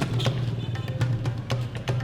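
Background music: a low bass pulse with quick, sharp percussion hits in a steady rhythm.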